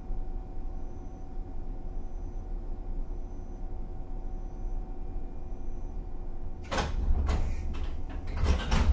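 Inside a standing JR 115-series electric train car, a steady hum from the car's equipment. About seven seconds in, the pneumatic sliding doors close with hissing air and clunks, loudest just before the end.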